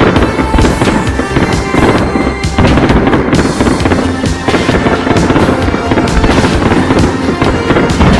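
Aerial fireworks display: shells launching and bursting in quick succession, a loud, dense barrage of bangs that keeps up throughout.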